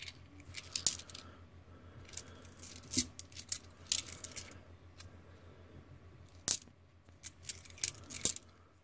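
Australian 20-cent coins clinking as they are handled one by one: a string of sharp, irregular metallic clinks, some a fraction of a second apart, others a second or two apart.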